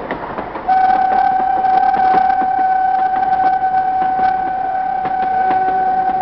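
Narrow-gauge locomotive horn starting about a second in and held as one long, loud, steady blast at a single pitch, over an irregular clicking rattle.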